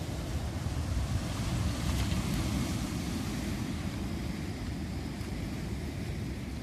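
Sea surf breaking over boulders and washing up a pebble beach, with wind rumbling on the microphone. The wash swells about a second in and eases off after about three seconds.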